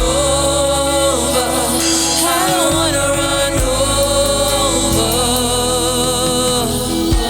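Gospel music: a sung melody with wavering, held notes over sustained instrumental backing.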